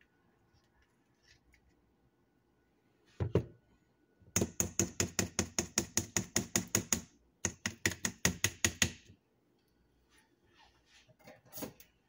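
Rapid, even clicking, about eight clicks a second, in two runs with a short break, as honey is squeezed from a bottle into a blender cup. A single knock comes just before, and a louder clack near the end.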